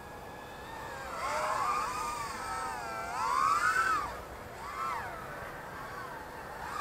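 Youbi XV-130 micro FPV quadcopter's four 1306 3600Kv brushless motors and props whining in flight. The pitch rises and falls with the throttle, climbing to its loudest about three and a half seconds in before dropping.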